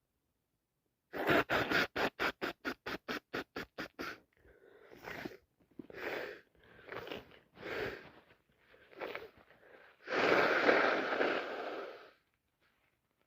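A woman with a heavy, wet head cold sniffing and breathing through a congested nose. First comes a quick run of about fourteen short sniffs, then several ragged breaths, then one long, loud two-second blast about ten seconds in.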